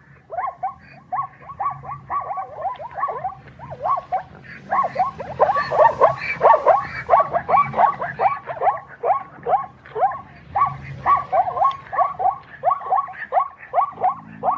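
Zebra calling: a long run of short, barking yelps, each note sliding down in pitch, about three a second, growing louder toward the middle.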